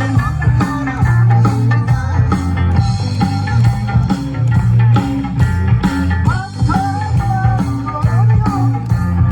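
A band playing an upbeat song live, with guitar, bass and a steady drum beat.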